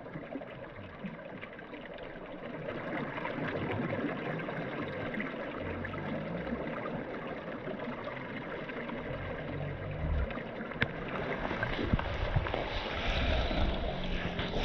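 Steady rush of flowing water, slowly growing louder, with low rumbling in the last few seconds.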